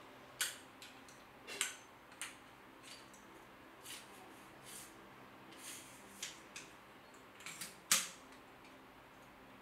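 Manfrotto tripod leg tubes being handled and slid against each other: a dozen or so light clicks, clacks and short scrapes at irregular intervals, the loudest clack near the end.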